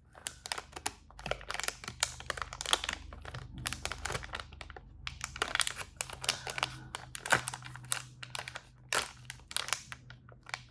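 Packaging crinkling and rustling as it is handled and opened, in quick irregular crackles.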